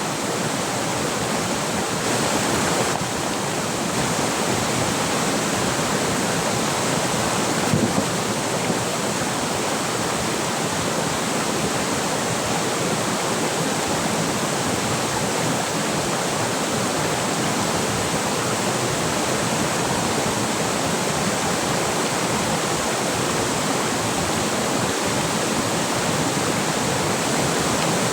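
River water rushing steadily, with a couple of small knocks about eight seconds in.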